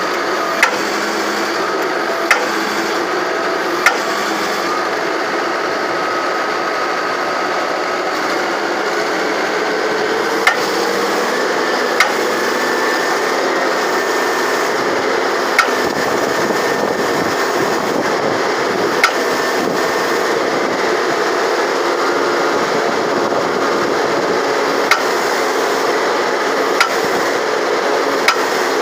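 Backhoe's hydraulic breaker hammer running steadily with dense continuous noise, and about ten sharp isolated cracks at irregular spacing. The owner says it is weak, lacking hitting force and needing repair.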